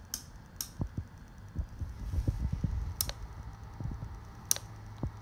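Handling noise: soft low thumps as the camera is carried around, with a few sharp clicks from the controls of a CB radio being worked and a faint low hum setting in about halfway through.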